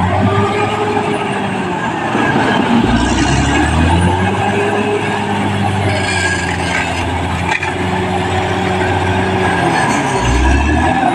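Caterpillar D6R crawler bulldozer's diesel engine running hard, its pitch rising and falling every few seconds as it works.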